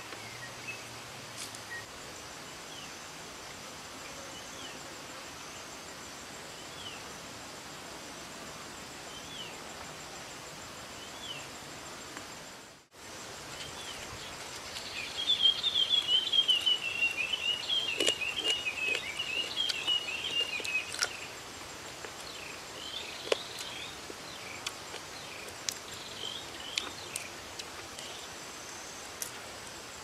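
Steady outdoor background hiss with a momentary drop-out a bit before halfway. After it, an animal's rapid chattering call runs for about six seconds and is the loudest sound. Scattered small sharp clicks come from fried diving beetles being picked apart by hand.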